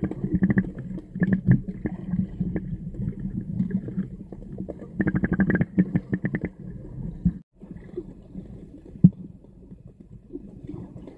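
Muffled underwater noise on a submerged camera's microphone: low water movement with many sharp clicks and crackles. It breaks off briefly about seven seconds in and comes back quieter.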